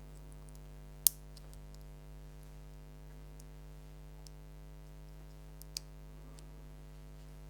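A few sharp clicks of small parts of a 6-pin DIN plug being fitted together, the loudest about a second in and another near six seconds, over a steady electrical hum.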